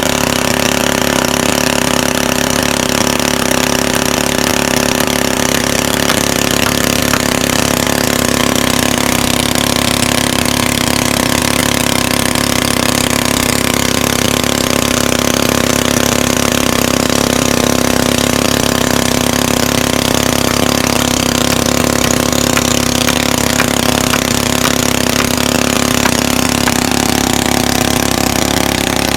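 A small engine running steadily at one constant speed, with a strong even hum and no revving or changes.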